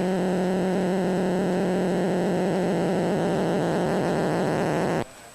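Faulty amplifier's speaker putting out its start-up noise while warming up: a steady hum with loud hiss. It cuts off suddenly about five seconds in.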